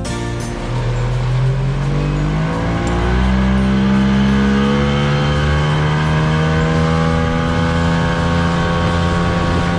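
Small boat's outboard motor opening up: its pitch climbs over the first three seconds or so, then holds steady at cruising speed.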